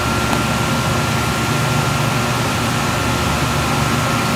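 Steady mechanical whir of a large shop ventilation fan: an even rushing noise with a constant high whine and a low hum, unchanging throughout.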